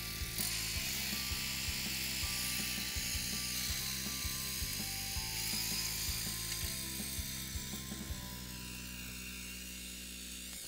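BCS walk-behind tractor running with its rear rotary tiller and precision depth roller churning a shallow strip of soil, a steady machine noise that fades somewhat in the last few seconds. Background music with a steady beat plays over it.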